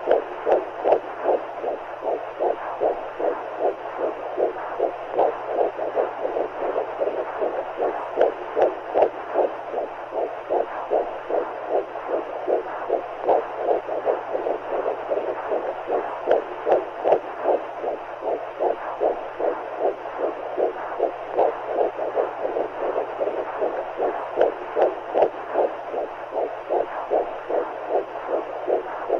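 Simulated womb sound: a steady, even rhythm of heartbeat pulses over a continuous whooshing fluid-like noise and a low hum. The beats swell and ease in loudness in waves.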